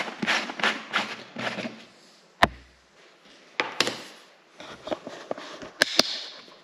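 Plastic screw lid of a large tub being twisted and wrenched open, with its tamper ring tearing off: a run of rasping scrapes, about three a second. A single sharp snap with a thud comes about two and a half seconds in, and a few more hard clicks and knocks of plastic follow near the end.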